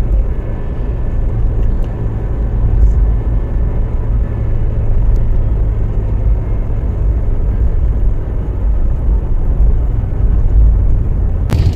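Vehicle driving on a road: a steady low rumble of engine and road noise.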